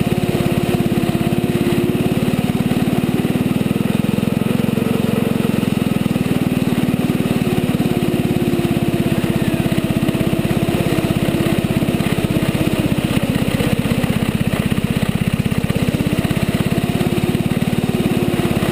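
Small youth snowmobile's engine running steadily, heard close up, with an even, rapid firing pulse and a nearly constant pitch.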